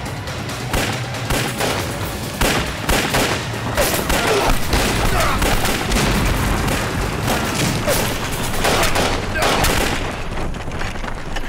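Battle sound effects: a dense, irregular volley of gunfire mixed with explosions, with a large blast among them.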